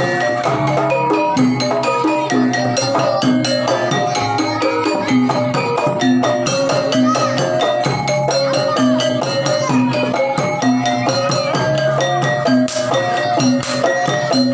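Javanese gamelan music for a jaranan horse dance: metallophone and gong-chime notes ringing in a quick repeating pattern over drumming.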